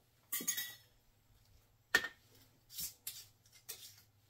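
Glass pint canning jars of pickles being handled and set back down on a towel-covered table, lifted by their metal lids to test the seals: a short scrape near the start, a sharp knock about two seconds in, then a few lighter knocks.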